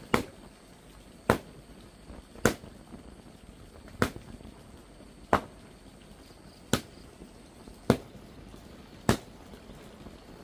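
Sharp blows of a hand tool at a steady chopping pace: eight strikes, a little over a second apart.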